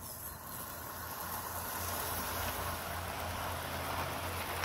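Model railway train running close past on outdoor track: the running noise of its wheels on the rails and its motor grows louder over the first couple of seconds and stays up as the coaches pass.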